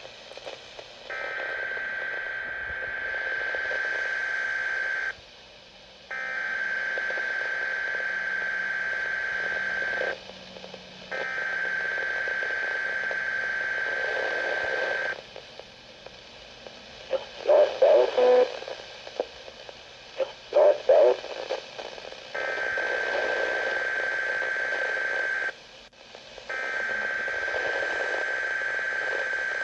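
Weather radio receiver static: a steady hiss with a high steady tone that comes on for about four seconds and drops out for about a second, several times over. A stretch in the middle has the hiss without the tone, broken by a few louder crackles.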